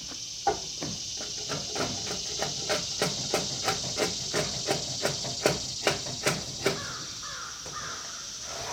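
Rapid hatchet strikes chopping into a pine beam, about three a second, stopping a little before the end, over a steady high hiss.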